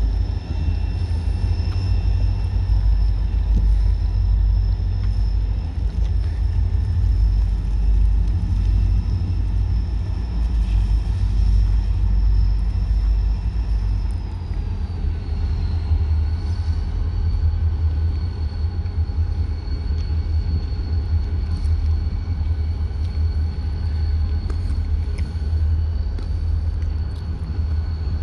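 A quadcopter drone's propellers whine steadily, and the pitch drops a little about fifteen seconds in as the motors change speed. A heavy low rumble runs under the whine.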